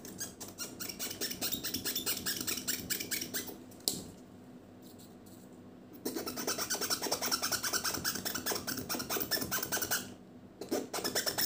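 Fast back-and-forth rubbing and scratching of a tissue against a small diecast truck cab, scrubbing off its printed lettering with eucalyptus oil. It comes in two bouts, broken by a pause of about two seconds near the middle.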